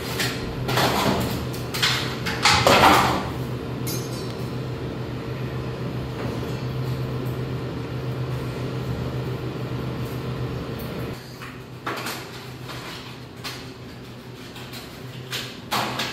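Glass light bulbs clinking and a plastic bag rustling as bulbs are taken out and screwed into the sockets of metal pendant light fittings, with the loudest rustle about three seconds in. A steady low hum runs under it until about eleven seconds in; after that only light clicks and taps are heard.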